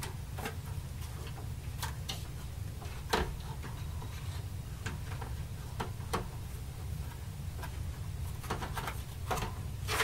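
Scattered small clicks, taps and rubbing as a TRS-80 Model III keyboard assembly is handled and fitted over the computer's case, with a louder knock about three seconds in and a quick run of clicks near the end. A steady low hum sits underneath.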